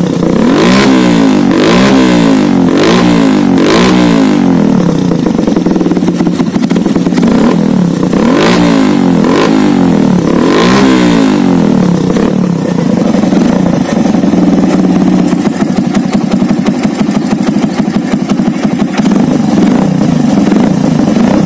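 Suzuki Thunder's single-cylinder four-stroke engine blipped in short revs through its rebuilt muffler: a cluster of quick revs in the first few seconds, another around eight to eleven seconds in, then a steady idle for the rest. The muffler's damaged rear baffle was reworked to give a deep, soft exhaust note rather than a loud raw one.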